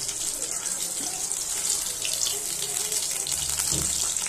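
Chicken nuggets deep-frying in hot oil in a wok: a steady high sizzle with fine crackles. There is a low knock near the end as the wire skimmer goes into the pan to lift the nuggets out.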